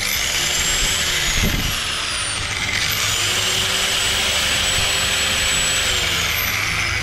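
Corded angle grinder running off a portable power station's AC outlet: it spins up with a high whine, is let off about a second in and winds down, then is switched on again near the three-second mark, runs steady, and begins winding down about six seconds in.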